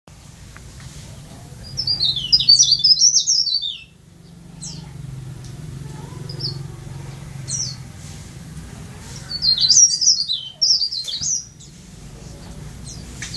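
A caged leaf warbler (cikrak daun) singing: two bursts of fast, high, jumbled twittering a few seconds apart, with single short high calls in between. A faint low hum runs underneath.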